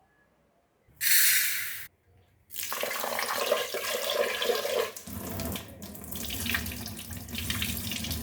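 Water running from a tap into a sink, starting after a brief loud hiss about a second in; the running water gets fuller and deeper about halfway through.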